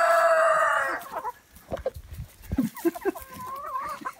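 A rooster's long crow, already under way, ends about a second in; after it, hens cluck and make short, warbling calls at a lower level.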